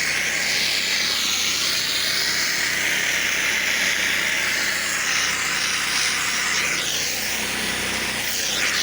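Pressure washer spraying concrete: a steady hiss of the high-pressure water jet, with a low engine hum underneath.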